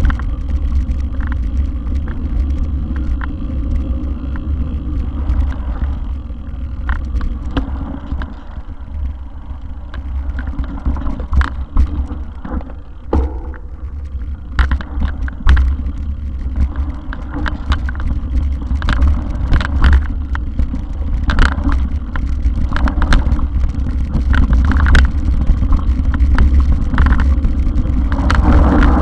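Mountain bike ride over a rough dirt trail heard through a bike-mounted camera: a constant deep rumble of wind and vibration on the microphone, with frequent rattles and knocks as the bike jolts over the ground.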